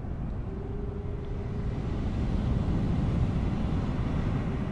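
A distant foghorn on the Golden Gate Bridge sounds one faint, steady low note from about half a second in to about two seconds, and starts again at the very end. Under it runs a steady low rumble that swells a little in the middle.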